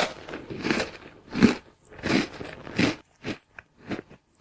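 Crunchy chewing and chomping, a run of wet bites about one to two a second that grow shorter and sparser near the end.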